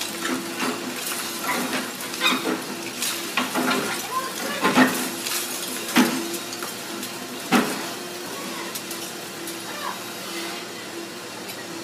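Doosan tracked excavator running with a steady engine hum while it breaks down a concrete and brick building. Broken slabs and brick crash and clatter onto the rubble pile at irregular moments, loudest about five, six and seven and a half seconds in.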